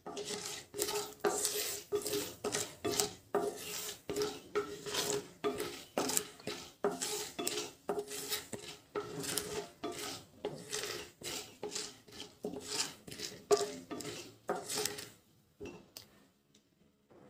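Wooden spatula scraping and knocking against a kadhai as chana dal and mustard seeds are stirred and roasted in hot ghee, in quick repeated strokes, a few a second. The stirring stops about two seconds before the end.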